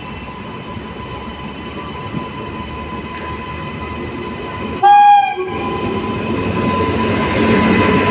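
Indian Railways electric locomotive sounding one short horn blast about five seconds in, while the rumble of the train grows louder as it draws near.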